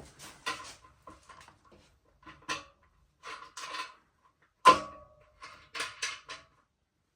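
Handling noise from working on bike parts: short rustles and knocks, with one sharp metallic clink that rings briefly about two-thirds of the way through.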